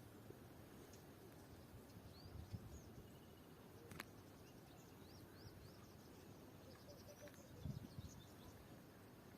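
Faint outdoor ambience: a low rumble with a few faint, short bird chirps scattered through, and a single sharp click about four seconds in.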